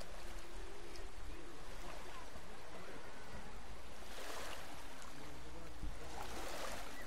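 Sea waves washing on the shore, a steady wash with two louder surges about four and six and a half seconds in.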